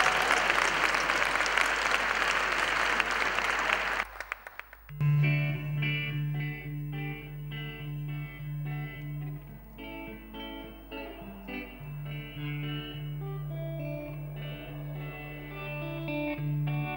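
Audience applauding for about four seconds, cut off suddenly. After a brief gap a band's instrumental intro begins: guitar notes over a low bass note pulsing on and off.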